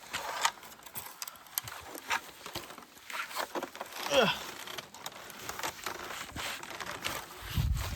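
Footsteps splashing and knocking through a shallow, rocky stream while crossing it, with the stream's hiss behind. About four seconds in, a short voice call glides down in pitch.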